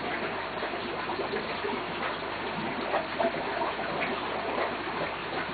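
Aquarium water noise: a steady rush of bubbling, trickling water from the tank's filtration or aeration, with many small pops and a steady low hum underneath.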